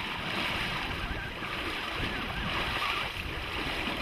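Steady outdoor wash of wind and nearby water, an even rushing noise with no distinct events.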